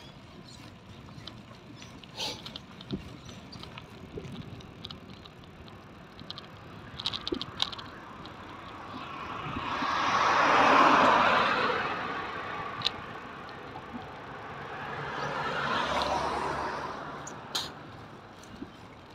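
Two vehicles passing on the road alongside, their tyre noise swelling and fading: the louder one about ten seconds in, a softer one around sixteen seconds. Scattered light clicks and rattles from the bicycle riding over the cracked footpath run under it.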